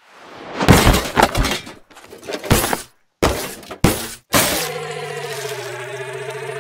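Added digital sound effects: a swelling whoosh, then a run of crashing, shattering impacts broken by two short silences. Near the end the crashes give way to a steady electronic hum that wavers slightly in pitch.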